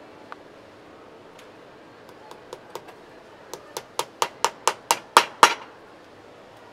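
Cobbler's hammer striking a boot held on a shoe last: a few scattered light taps, then a quick run of about ten strikes, roughly four to five a second, each louder than the one before.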